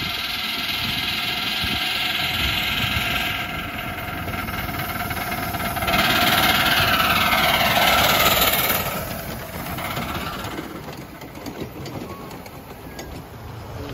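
Miniature-railway steam locomotive hauling passenger cars approaches and runs past, its steam hiss growing loudest about six seconds in as it passes close, then fading. Light clicks of wheels over the rail joints come near the end.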